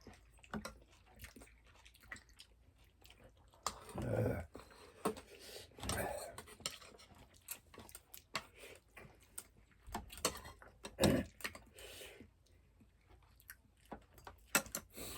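A person chewing and biting food, with many small clicks and a few louder spells about four, six and eleven seconds in.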